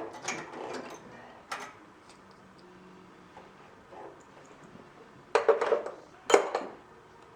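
Metal tools and parts clinking and clattering in a few short bursts, the loudest two close together near the end.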